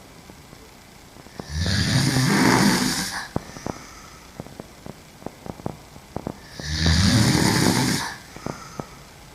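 A woman snoring while sleeping on her back: two loud snores about five seconds apart, each lasting about a second and a half, with faint clicks in between.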